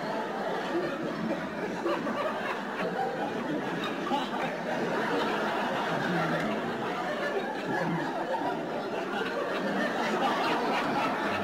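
Many people talking over one another and laughing: a steady babble of chatter with snickers and chuckles, no single voice standing out.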